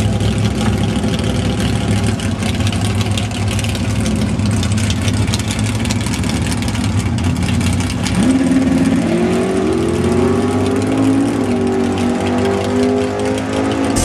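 Big-block 1969 Plymouth Road Runner and another drag car idling at the starting line, then launching about eight seconds in. The engine pitch climbs in steps through the gears as they run away down the strip.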